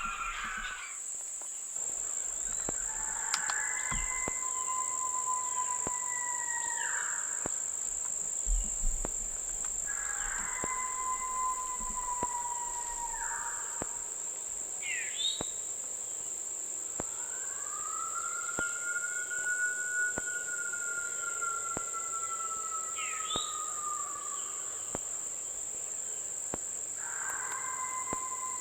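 Four long coyote-style howls, each several seconds long, rising at the start, held, then dropping off; the third is the longest. A steady high insect chorus runs underneath, and a couple of brief bird chirps come between the howls.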